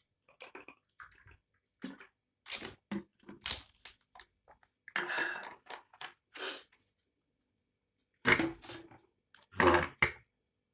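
Close-miked drinking of water: gulps and swallows, mixed with short clicks and crackles, and a few louder bursts toward the end.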